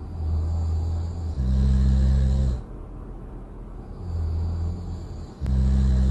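Loud snoring in a slow, even rhythm: twice, a softer breath with a faint hiss is followed by a louder, deep snore about a second long, the cycle repeating roughly every four seconds.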